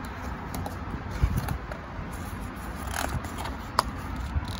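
A picture book's paper page being turned by hand: a few short rustles, scrapes and clicks over a steady low rumble.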